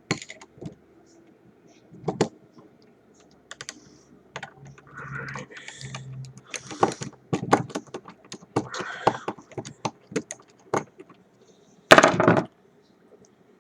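Irregular clicks and small metallic taps of a brass padlock and picking tools being handled, with a louder half-second clatter near the end.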